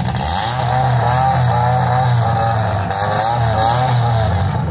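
Demolition derby car engines running loud and revving, their pitch rising and falling over and over.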